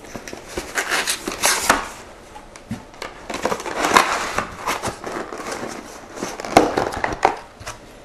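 Cardboard retail packaging and plastic inserts of an SSD upgrade kit being opened and handled: irregular rustling and scraping of the box sliding apart, with a few light knocks as parts are set on the table, loudest around the middle and near the end.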